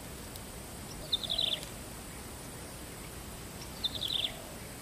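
A bird calling twice, about a second in and again near the end: each call a quick run of short high notes falling slightly in pitch, over a steady background hiss.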